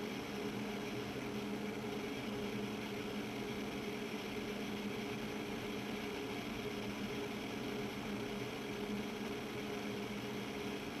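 Steady machine hum with several held low tones, unchanging throughout.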